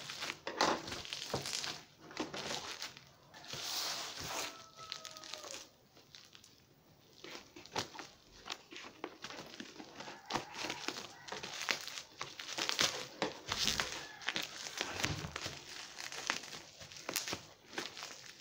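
Bubble wrap crinkling and rustling in irregular bursts as it is pulled and torn open from around a boxed tripod.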